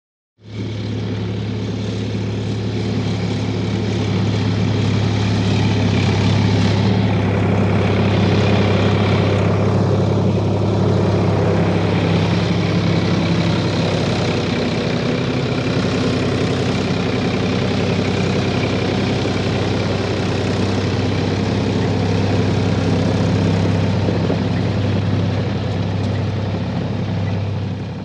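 Heavy engine running steadily at an even speed, a low hum with overtones. It comes in suddenly at the start and fades out near the end.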